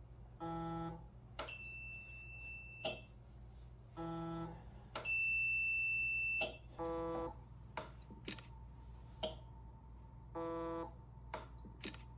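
Digital multimeter in continuity mode beeping twice, each a steady high beep of about a second and a half, as a relay clicks the phone-trigger circuit closed and open. In between, the scanner's stepper-motor turntable gives several short half-second whines as it steps round, with a few more relay clicks near the end.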